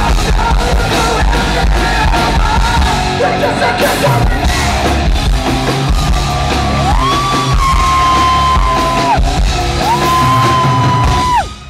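Rock band playing live and loud in a large hall, with electric guitars, bass and drums. In the second half two long high notes each slide up and are held for about two seconds, and the music drops away near the end.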